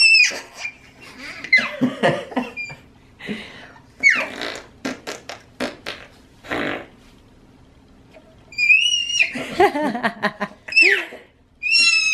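A man blowing a series of raspberries against a baby's cheek and neck, making wet, fart-like bursts. Between them the baby gives high-pitched squeals of laughter, most of all at the start and in the last few seconds.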